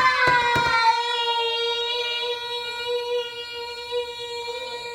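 A child's voice holding one long high sung note for about five seconds, swooping up into it at the start. A couple of light clicks sound within the first second.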